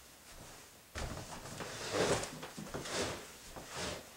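Handling noises of someone settling in at an upright piano: a knock about a second in, then three short rustling scrapes, with no piano notes played.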